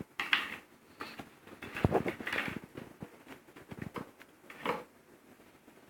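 Irregular light clicks, taps and rustles of small hard parts being handled and fiddled with during a repair.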